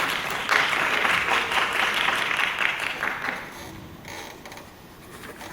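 Audience applauding a song, many hands clapping at once, dying away about three and a half seconds in.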